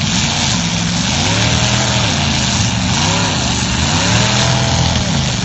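Demolition derby car engines revving up and down several times over a loud, steady wash of noise.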